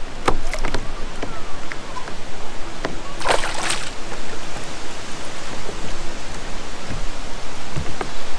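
A hooked bass splashing at the surface beside a kayak as it is played in, with one loud splash about three seconds in, over a steady wash of water and wind noise and a few small knocks.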